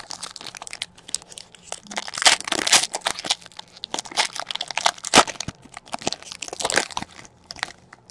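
Foil wrapper of a Donruss football card pack being torn open and crinkled by hand: a dense crackling and rustling that builds about two seconds in and eases off shortly before the end.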